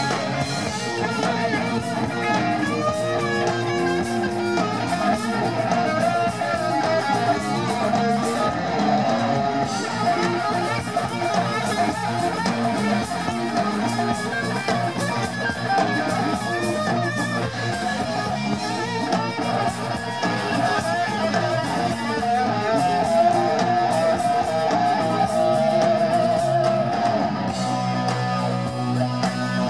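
Live hard rock band playing: electric guitars over bass guitar and drums, loud and unbroken.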